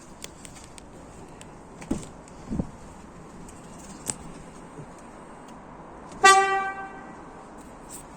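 A single newly fitted Volga (GAZ) car horn, one of a pair, gives one short honk about six seconds in. It is a bench test of the horn wired to the factory horn terminal, and it sounds far louder than the stock horn. A few faint knocks come before it.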